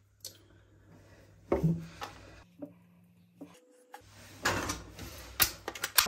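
Handling of plastic drain-pipe fittings and tools: a few short knocks and scrapes, thickening into a busier run of clatter near the end.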